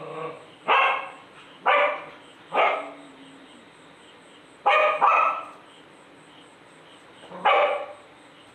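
Small dog barking: three barks about a second apart, then a quick double bark about five seconds in, and a single bark near the end.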